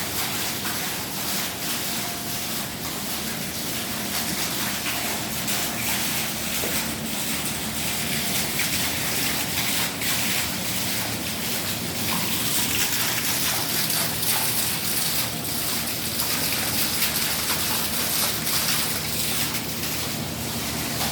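Steady rushing, gushing water, like a running water feature for a water-powered sawmill.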